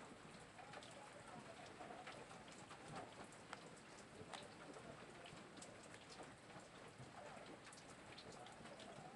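Faint light rain: a low steady hiss dotted with scattered small ticks of drops.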